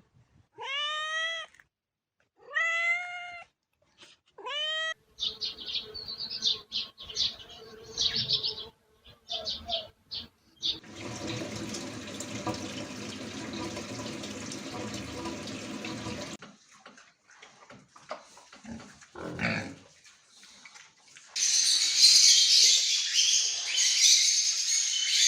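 A domestic cat meowing three times, each meow rising then falling, followed by a run of short high sounds, a steady noisy stretch, and near the end a loud high-pitched hiss-like sound.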